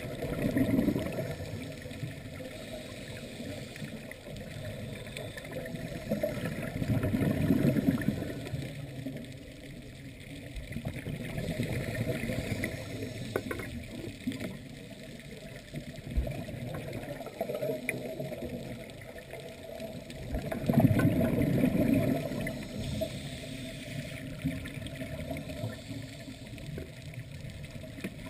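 Scuba diver's exhaled bubbles from the regulator, heard underwater as three louder rushes a second or two long and several seconds apart, over a steady hiss.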